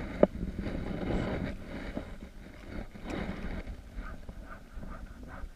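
A sharp click just after the start, then a spinning reel being cranked to retrieve line, a rough whirring with a steady ticking rhythm.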